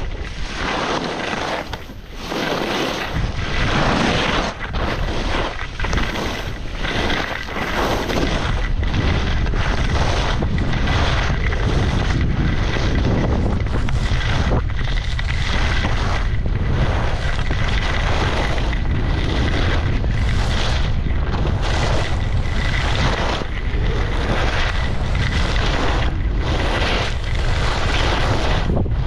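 Wind buffeting a GoPro's microphone during a ski run, with the skis hissing and scraping across the snow in a series of turns. The low wind rumble becomes steady after the first several seconds.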